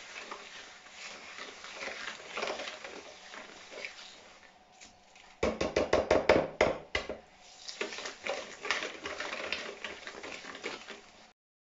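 Wire whisk beating eggs, sugar and butter in a plastic mixing bowl: irregular scraping and clicking of the wires against the bowl. About five and a half seconds in there is a loud, fast run of about ten strikes lasting a second and a half.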